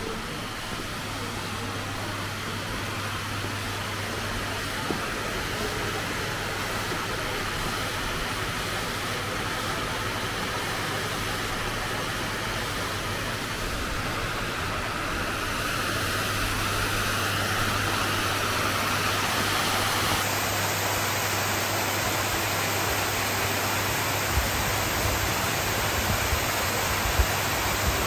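Water pouring over a small stone weir in a steady rush that grows louder about halfway through and stays loud.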